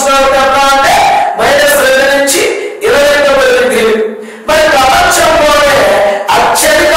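A man's raised voice in a loud, sing-song delivery with long drawn-out vowels, broken by short pauses.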